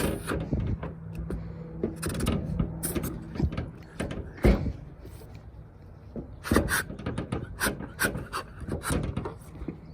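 Irregular clicks, knocks and scraping as hands and tools work a dent in a car's rear bumper, with one sharper knock about halfway through.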